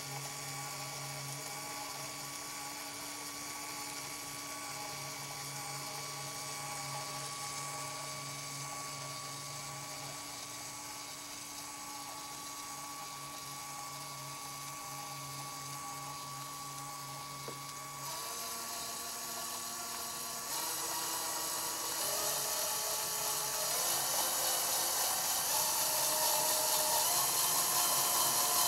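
LEGO Technic electric motor and gear train whirring steadily as they drive the linkage, a thin drill-like whine with a fixed tone in it. From about two thirds of the way in it grows louder and its pitch shifts in steps as the mechanism turns.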